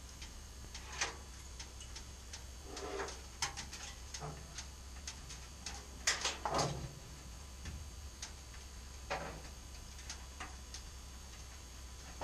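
Scattered, irregular clicks and knocks of things being handled in a workshop, the loudest a pair of knocks about halfway through, over a steady low hum.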